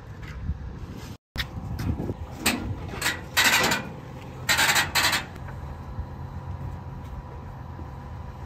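A few short rasping scrapes and clanks from a car being loaded onto a metal car-transport trailer and strapped down, over a steady low hum.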